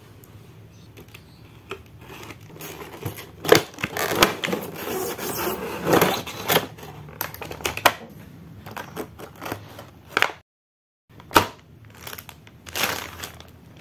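A clear plastic bag around a toy belt crinkling and rustling as it is handled, with irregular clicks and knocks of hard plastic packaging. The sound cuts out for a moment about ten seconds in.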